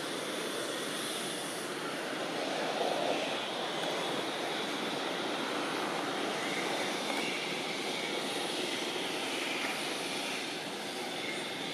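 Steady rushing outdoor background noise with a faint high hiss above it.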